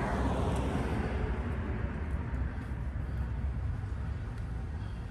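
Steady low background rumble, with a wider hiss fading away over the first two seconds.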